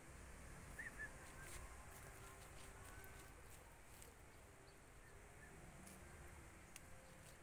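Near silence: faint outdoor background with a few brief, faint distant animal calls and scattered light clicks.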